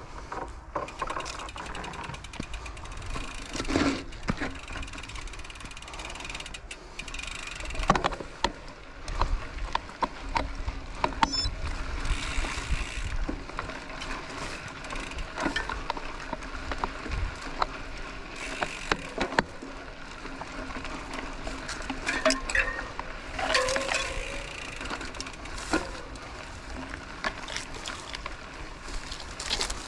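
Mountain bike riding a dirt road: chain, freewheel ratchet and frame rattling and clicking irregularly over a steady rumble of rolling and wind.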